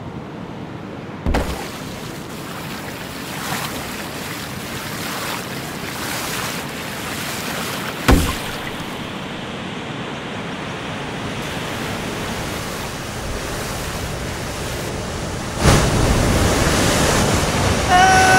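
Ocean surf washing steadily, with two sharp thumps, about a second in and about eight seconds in, and a louder rush of surf near the end. A short pitched cry sounds right at the end.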